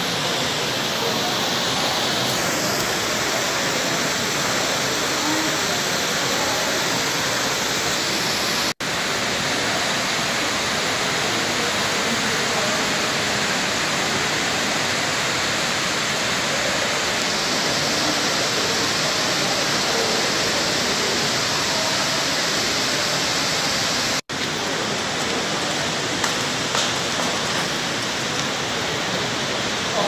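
Steady rush of running water echoing in a cave, broken by two brief dropouts.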